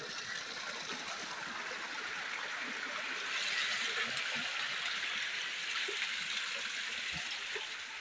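Water trickling into a rock cave, seepage from an irrigated field above; the trickling grows louder about three seconds in.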